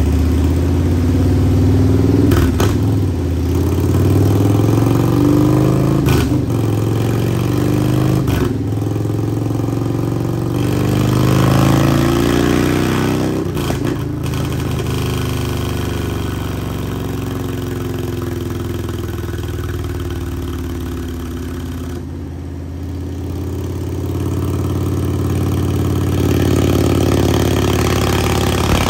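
2023 Harley-Davidson CVO Road Glide's Milwaukee-Eight 121 V-twin running hard on a chassis dyno through a short stainless Sawicki Speed exhaust. It revs up through the gears with brief breaks at each shift and is loudest about twelve seconds in. It then winds down and revs up again near the end.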